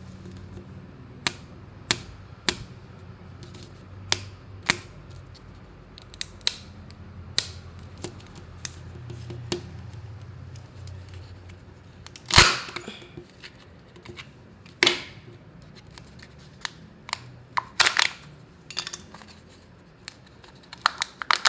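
Kinder Joy packaging being handled and opened: scattered sharp plastic clicks and crackles, with one loud snap about halfway through and denser crinkling near the end.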